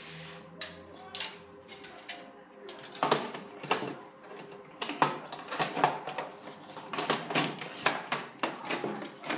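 Sheet-metal cover of a desktop computer case being lowered onto the chassis and worked into place, metal clacking and knocking against metal. A few clicks at first, then a dense run of sharp clacks from about three seconds in.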